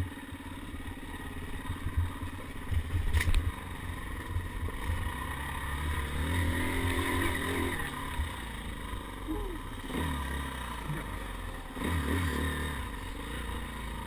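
Dirt bike engine running at low revs, its pitch rising and falling as the throttle opens and closes. The bike knocks and rattles over the rough trail, with a few loud knocks about three seconds in.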